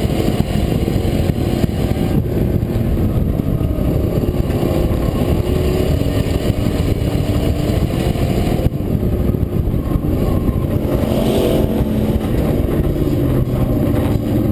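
Racing pickup truck's engine running hard on a dirt oval, heard from the truck's own bed, its pitch rising and falling with the throttle through the laps.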